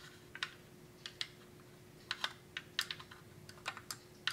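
Light, irregular clicks and taps of hard plastic as an assembled 1/25-scale plastic model car is handled and turned in the hands, with more of them after about two seconds in. A faint steady hum runs underneath.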